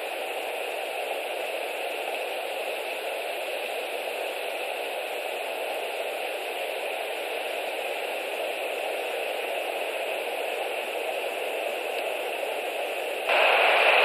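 Steady hiss of background noise on the nest camera's outdoor microphone, with no eagle calls. It steps up louder about a second before the end, where the recording cuts to a later time.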